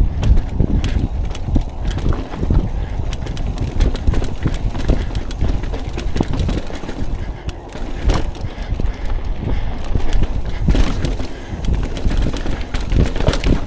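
A mountain bike clattering over a rocky trail, with a constant low rumble and many irregular knocks and rattles.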